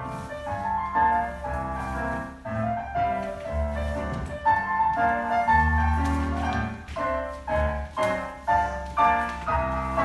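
Classical-style piano music: a steady run of struck notes and chords over low bass notes.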